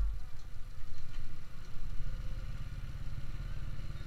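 Motorcycle engine running at low speed, a steady low throbbing rumble.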